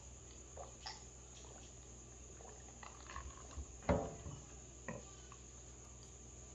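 Eating at a table: a metal fork clicking and scraping on a plate, with one louder knock about four seconds in as a plastic cup is set down on the table. A steady high-pitched whine runs underneath.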